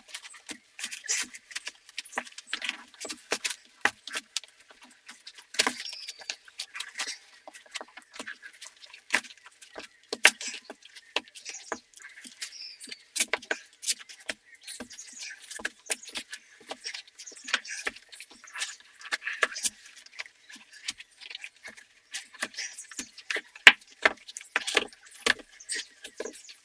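Irregular clicks, taps and short scrapes of hand work on an old car tire, several sharp clicks a second with uneven gaps.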